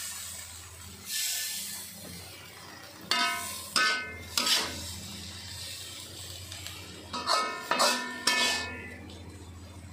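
Metal spatula scraping and knocking against a metal wok as stir-fried water spinach is scooped out onto a plate. Each knock rings briefly, in two clusters of about three knocks each: one around three to four seconds in and one around seven to eight seconds in.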